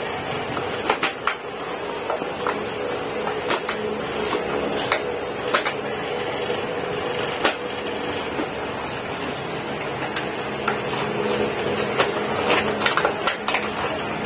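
Scattered clicks and light knocks of toys and packaging being handled, over a steady low hum.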